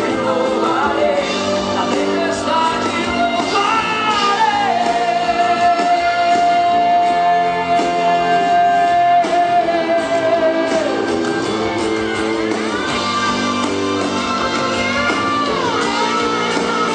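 Live worship band playing, with guitar and singing and no clear words. One long note is held for about six seconds in the middle.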